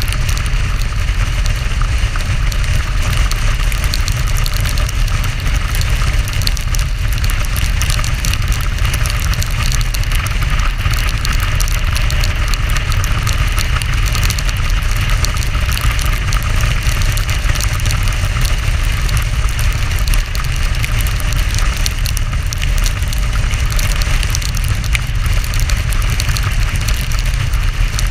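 Steady loud wind rush and deep rumble on the microphone of a camera mounted on a moving motorcycle on a wet road, with engine and tyre noise mixed in.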